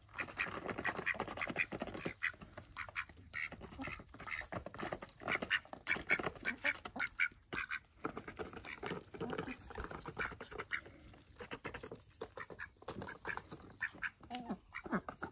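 Domestic ducks quacking while ducks and chickens feed from a plastic trough feeder, with many short clicks and taps of bills and beaks against the feeder and grain.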